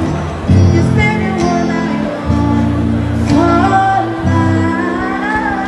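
A woman singing to her own guitar, the chords held and changing about every two seconds. Her voice glides over them and is strongest in the second half.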